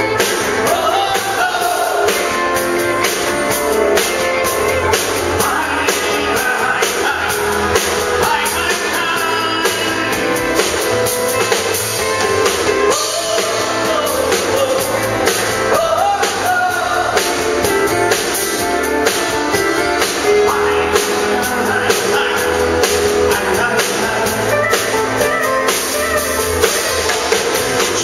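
Live country band playing: a man singing with acoustic guitar over a drum kit and backing instruments.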